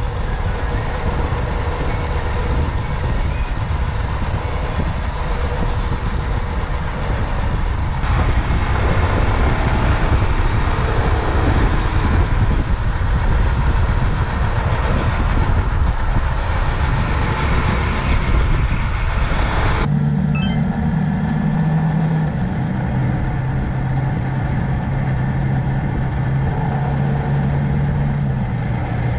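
Suzuki GrassTracker BigBoy's single-cylinder engine running under way, mixed with heavy rushing wind noise. About two-thirds of the way through it cuts suddenly to a steadier, lower engine hum that steps down in pitch twice.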